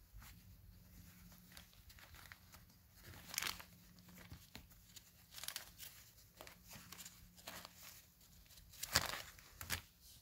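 Cloth dust bag of a Eureka Mighty Mite canister vacuum being handled, with plastic wrapping crinkling: faint, irregular rustles, the loudest about nine seconds in.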